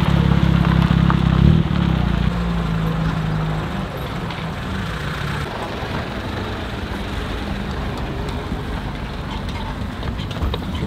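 Vintage roadster's engine running as the car drives off, loud for about a second and a half and then fading by about four seconds in, leaving a steady noise of distant vehicles.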